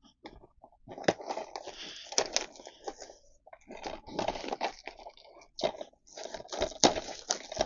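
Packaging of a DVD box set being opened by hand: irregular crinkling and rustling with a few sharp snaps.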